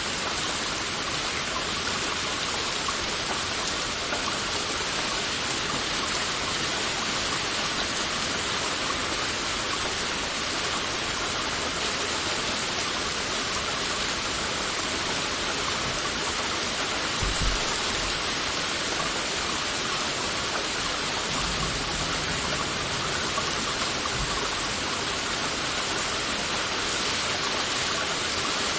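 Heavy rain falling steadily, a dense even hiss of drops. A brief low rumble comes just past the middle, and another lasts a few seconds soon after.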